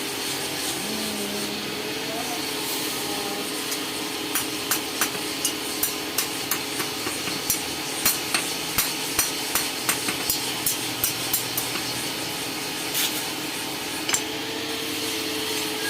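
Hammer blows on metal at an anvil while a hand sickle is forged: a run of sharp strikes at about three a second, starting about four seconds in, then two lone strikes near the end, over a steady background hiss.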